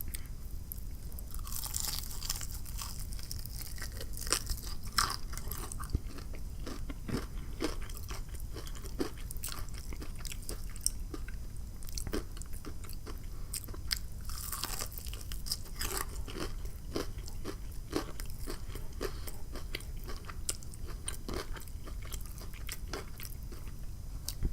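Close-miked mouth sounds of biting into and chewing crispy fried chicken: repeated irregular crunches and crackles of the breaded crust, with wet chewing between them.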